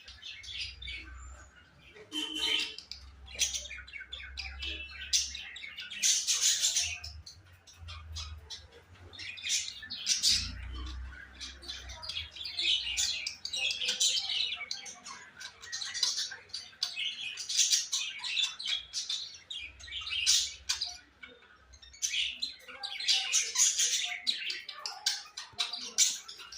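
Small birds chirping and squawking in repeated bursts of quick, high calls, a fresh burst every second or two.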